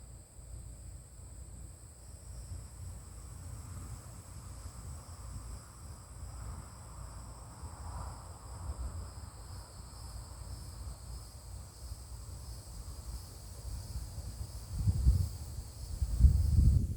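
A steady, high, even insect chorus, with a low rumble underneath that grows louder in two surges near the end.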